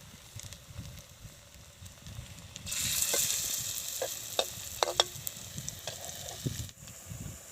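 Okoy (grated green papaya fritter batter) frying in hot oil in a pan. The sizzling jumps up loud almost three seconds in, and a few sharp clinks of a utensil against the pan come over it.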